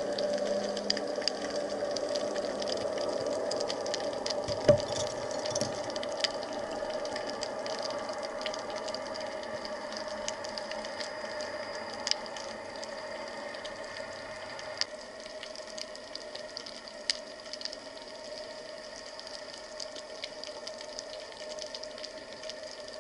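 Underwater sound picked up through a waterproof camera housing: a steady muffled hum with scattered sharp clicks and crackles, one louder click about five seconds in, the whole slowly getting quieter.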